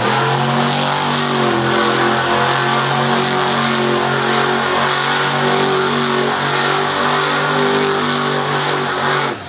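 Monster truck engine held at high revs in a steady drone as the truck spins a doughnut, easing off just before the end.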